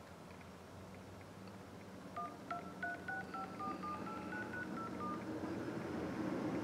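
iPhone 11 keypad playing DTMF touch tones as digits are tapped: about a dozen short two-note beeps in quick succession, starting about two seconds in.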